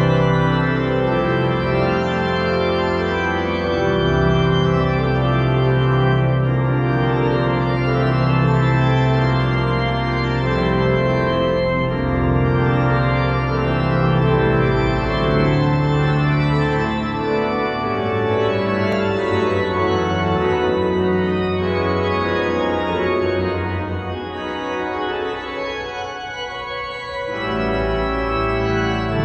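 Pipe organ playing loud, full chords over long-held pedal bass notes in a reverberant cathedral. Near the end the texture thins and quietens for a few seconds before full chords come back.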